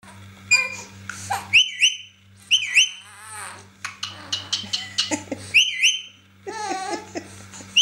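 Rose-ringed parakeet giving the same short, high whistle with quick up-and-down glides several times over, mixed with a baby's fussing cries.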